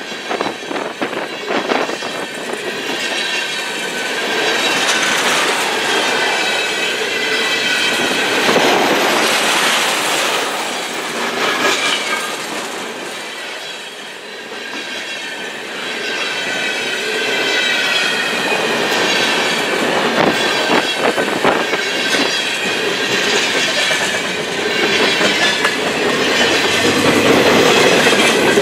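Freight cars of a long mixed freight train, tank cars and hopper cars, rolling past close by. The steel wheels clack over the rail joints, with a wavering high squeal from the wheels on the rail.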